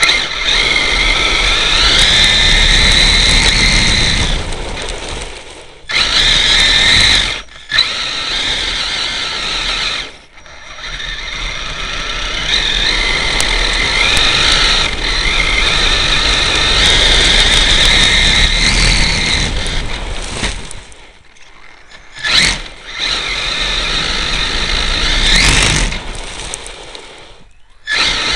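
HPI E-Firestorm Flux RC truck's brushless electric motor and drivetrain whining in runs that rise and fall as it accelerates and slows, with a rumble of tyres on dirt underneath. The whine cuts out briefly several times, as near the 5, 7 and 10 second marks and again around 21 s, when the throttle is let off. Heard close up from a camera riding on the truck.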